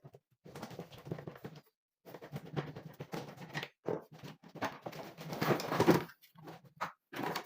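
Irregular clattering and scraping as the plastic and metal parts of an air-conditioner indoor unit are handled during dismantling, in uneven bursts with short gaps. It is loudest about two-thirds of the way in.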